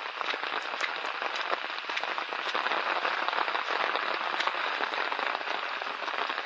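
Steady rain falling, with many small drops ticking densely on a surface.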